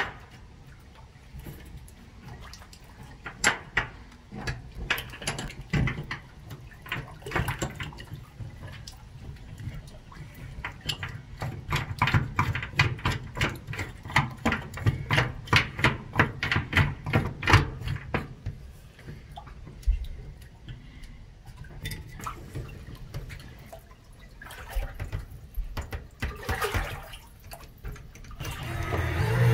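Water sloshing and splashing in the enclosed space under a pontoon boat's deck, between the aluminium pontoon tubes. Through the middle it becomes a run of quick, regular splashes, about two to three a second, for several seconds.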